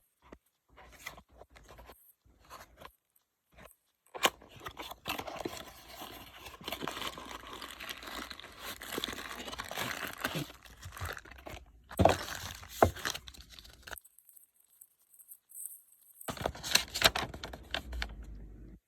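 Packaging being torn open and crinkled by hand, with a few sharp knocks along the way.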